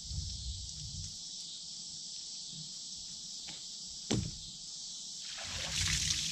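Water being sprayed onto freshly sawn boards: a hissing spray that swells up about five and a half seconds in. There is a single knock about four seconds in, over a steady high hiss.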